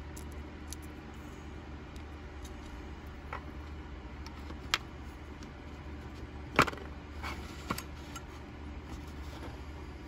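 Small metal knife parts (screws, washers, aluminium handle scale) clicking as they are handled and set down, about five scattered sharp clicks with the loudest a little past the middle, over a steady low hum.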